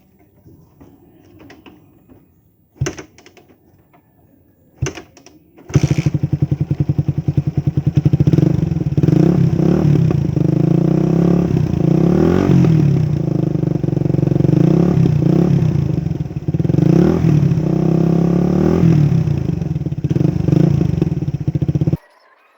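Motorcycle running through an Akrapovic 51 mm big-elbow exhaust with a dB killer fitted. Two sharp clicks, then the engine starts about six seconds in and is revved up and down repeatedly. It cuts off suddenly near the end.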